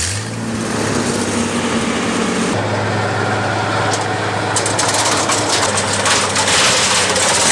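Wood chipper's engine running steadily with a constant low hum; from about halfway, dense rapid crunching and rattling join in as material is fed through and chipped.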